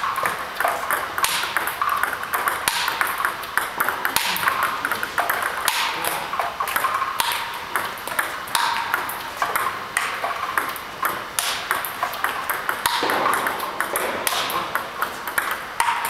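Table tennis ball clicking in a fast, continuous rally against a ball robot: sharp pings of the ball bouncing on the table and being struck by a paddle faced with XIOM Janus DF 1.5 rubber, returning topspin.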